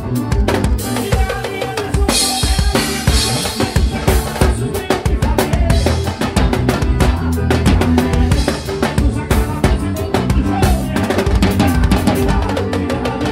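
A drum kit played live with a praise band: kick drum, snare and rimshot strokes with cymbal crashes over the band's low sustained accompaniment.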